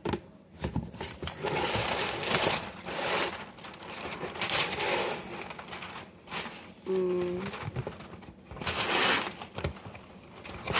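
Wax paper being pulled off its roll and handled, crinkling in three separate rustling bursts.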